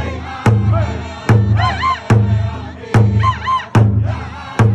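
Powwow drum group: several drummers striking a large shared powwow drum in unison with beaters, a steady beat a little over one stroke a second, while men and women sing a powwow song over it.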